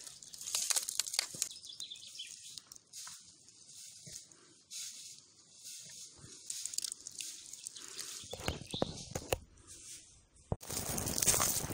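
Close, irregular crackling and rustling of dry oak leaves and bark as a hand breaks a small bracket fungus off a fallen log. About a second before the end, the sound switches abruptly to footsteps through dry leaf litter.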